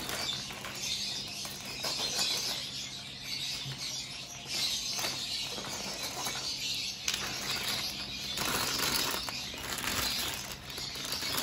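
Thin plastic bag crinkling and rustling as it is cut with scissors and pulled open by hand, with a few sharp clicks.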